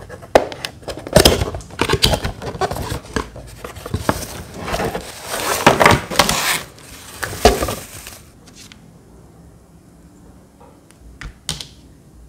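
Cardboard fan box being opened and a fan in a white wrapping sheet pulled out, crinkling and rustling loudly for about eight seconds. After that it goes quieter, with a few light taps as small items are handled.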